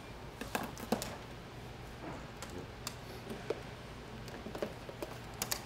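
Scattered light clicks and taps from the LCD glass panel and thin plastic layers of a flat-panel TV being handled and lifted apart, with a quick cluster of clicks near the end, over a low steady hum.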